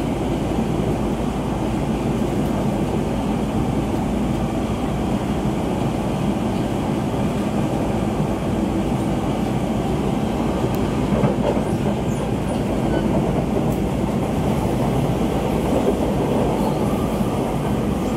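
Siemens C651 electric train heard from inside the car while running between stations: steady wheel-on-rail running noise.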